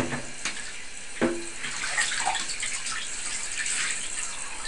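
Handheld shower head spraying water over a cat's fur in a bathtub, a steady hiss of running water. Two sharp knocks, right at the start and about a second later, each with a brief ring.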